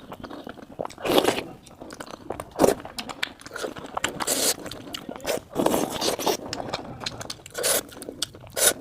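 Close-miked mukbang eating: a person chewing and biting into jhol momos, with irregular wet mouth sounds and scrapes coming every second or so.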